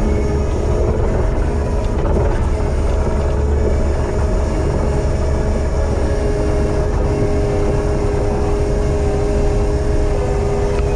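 Kubota compact track loader's diesel engine running steadily, a low rumble with a steady whine above it.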